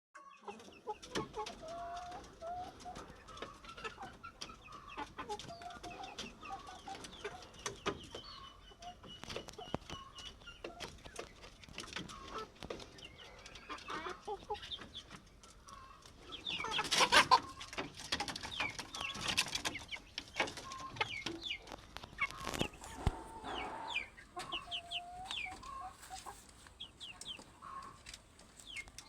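Domestic chickens clucking, with many short clicks among the calls and a louder flurry of sound about seventeen seconds in.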